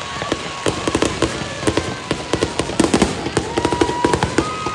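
Fireworks going off: a dense, irregular run of sharp crackling pops and bangs.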